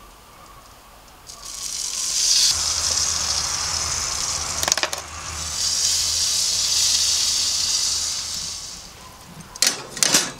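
A loud rushing hiss for several seconds, then near the end metal tongs clinking against the kamado grill's steel cooking grate.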